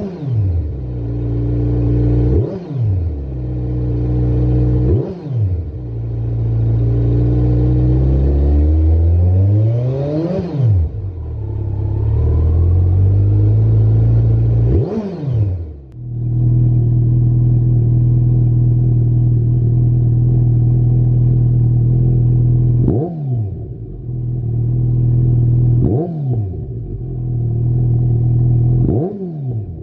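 Kawasaki Z900 inline-four engine breathing through a Lextek SP1 aftermarket silencer, being revved. It gives quick throttle blips a couple of seconds apart, then a slower climb in revs that peaks and drops, then a steady idle broken by three more short blips near the end.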